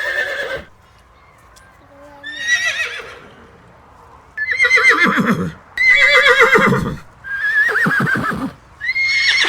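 Horse whinnying repeatedly: a run of about six neighs, each a wavering high call that drops in pitch at its end, with short pauses between them.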